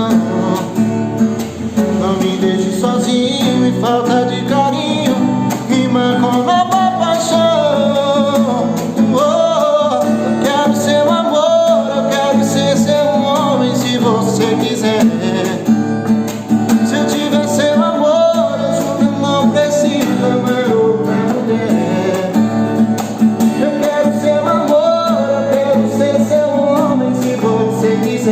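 Sertanejo song played on acoustic guitar, with a singing voice carrying the melody.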